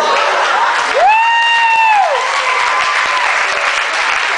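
Audience applauding, with a high pitched call about a second in that rises, holds for about a second and falls away.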